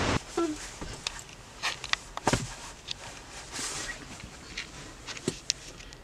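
Scattered light taps and ticks at uneven intervals, a dozen or more over a faint steady background: raindrops striking glass.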